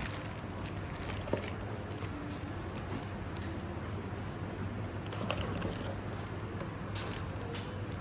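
Small plastic parts and wires of a car blind-spot alarm kit being handled: scattered light clicks and rustles, a few a couple of seconds apart, over a steady low hum.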